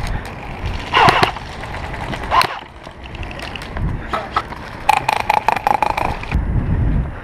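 Airsoft guns firing short bursts of rapid clicks, once about a second in and again about five seconds in. In between are rustling and thuds as the player moves over gravel.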